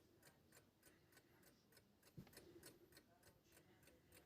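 Near silence with faint, even ticking, several ticks a second, and one soft thump about two seconds in.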